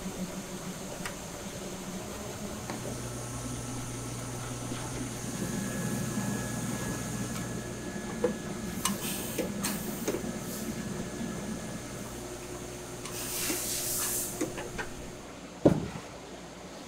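Workshop noise from hand work on plastic motorcycle helmet shells over a steady low machine hum: scattered light clicks and taps, a short hiss about 13 seconds in, and one loud thump shortly before the end.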